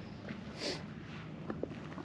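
Footsteps of a hiker walking on a trail: a soft scuff a little under a second in, then a couple of light clicks.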